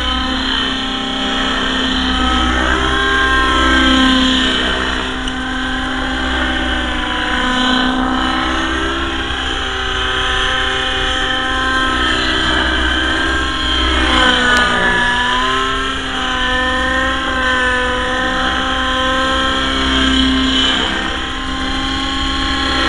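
Avant Aurora 90 nitro RC helicopter in flight, its glow engine and rotors running with a steady whine. The pitch dips and rises again several times as it flies.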